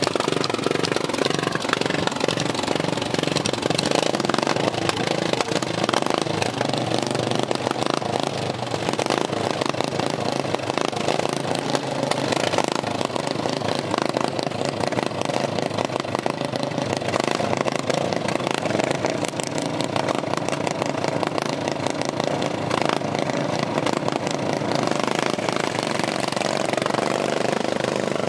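Racing riding lawn mowers' small engines running hard as several mowers circle and pass, their engine notes overlapping and rising and falling steadily.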